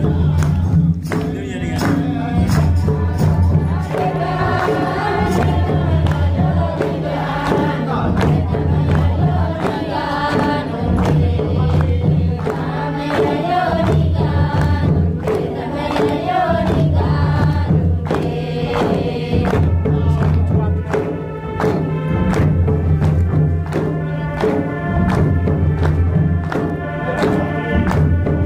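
Group of voices singing a Karma folk song, with a deep drum beat recurring about every two seconds and frequent sharp percussion strikes.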